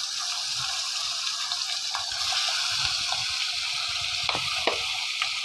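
Marinated beef chops and sliced onions sizzling steadily in hot oil in a pot, with two light utensil knocks near the end.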